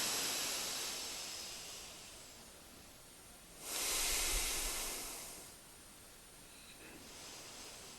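Slow, deep breaths drawn and pushed through the nose in a gentle bhastrika pranayama, paced slowly as for asthma sufferers. Each breath is a long hiss: one fading over the first two seconds, another about three and a half seconds in, and a fainter one near the end.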